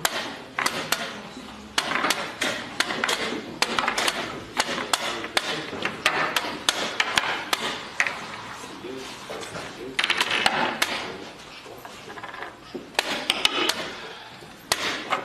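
Wooden chess pieces are set down in quick succession on a wooden board and the chess clock's buttons are slapped, making a rapid, irregular run of sharp clicks and knocks typical of a blitz game. Voices can be heard underneath.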